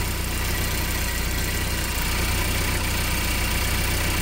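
2012 Ford Focus engine idling steadily.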